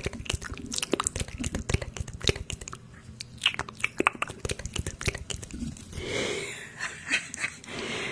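ASMR mouth sounds: rapid, irregular wet clicks and smacks, turning to a breathy hiss for the last two seconds.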